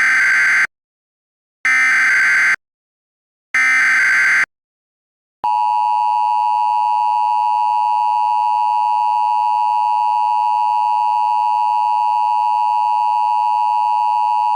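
Emergency Alert System (EAS) SAME header: three short bursts of warbling digital data, each about a second long with a second's gap between them. About five seconds in, the long steady EAS attention tone starts, signalling that a new alert broadcast is beginning.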